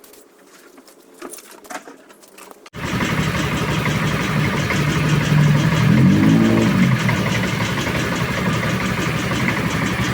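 A Yamaha RX-King's two-stroke single-cylinder engine comes in suddenly about three seconds in and runs at idle, with one brief rev near the middle. Before it, only faint small taps.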